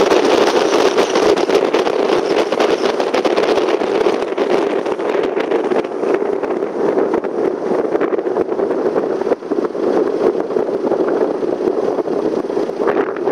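A car driving along a road, with steady engine and tyre noise heard from inside. The rushing eases after about five seconds as the car slows down.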